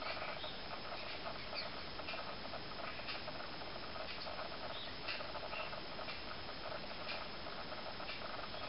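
Garden birds chirping: a dense run of quick, squeaky calls, with higher chirps and ticks every second or so.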